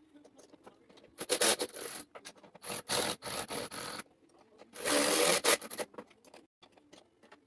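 Hard plastic parts rubbing and scraping against each other in three bursts of about a second each, as a tight-fitting piece is forced into place.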